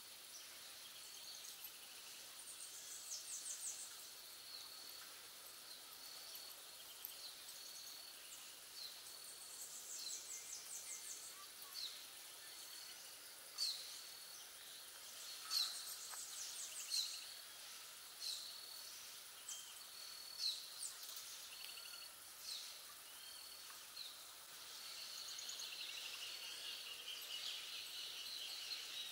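Birds chirping and trilling, with sharp single chirps coming every second or two through the middle, over a steady hiss of background noise and a faint high note that keeps breaking off and starting again.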